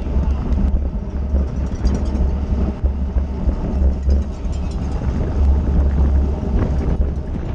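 Wind buffeting on a bike-mounted onboard camera's microphone at racing speed: a loud, deep, uneven rumble that never lets up.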